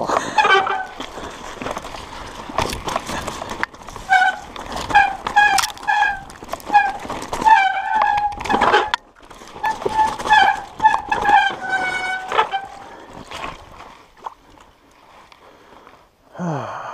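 Mountain bike disc brakes squealing in a run of short, repeated honking squeals, mixed with the rattle and knock of the bike over the rough trail and the scrape of snowy branches; the squeals stop after about twelve seconds.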